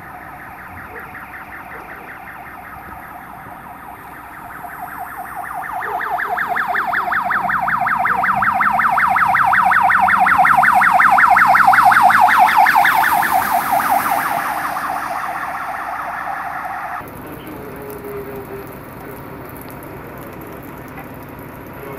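A rapidly pulsing electronic siren, many pulses a second, that swells louder toward the middle and then eases, over traffic hiss on a wet road. It cuts off suddenly about three-quarters of the way through, leaving only the road noise.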